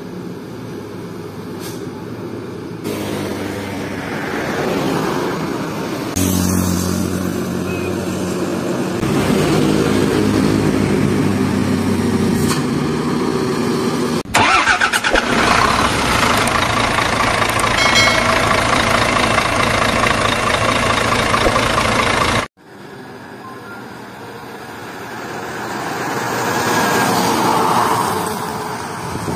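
Heavy diesel trucks driving past one after another, their engines running under load, in several short clips cut together so the sound changes abruptly a few times. The loudest passage, in the middle, is a cargo truck passing close by.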